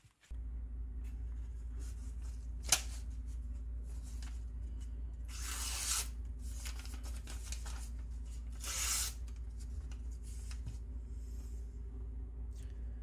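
A freshly sharpened kitchen knife test-slicing a sheet of newspaper held in the hand. There are two drawn-out paper-slicing swishes about five and a half and nine seconds in, and a short sharp tick near three seconds, over a steady low hum.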